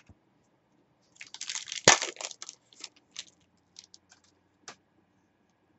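Trading card pack wrapper crinkling as it is torn open and handled, a dense crackling burst with one sharp crack about two seconds in, then a few scattered crinkles.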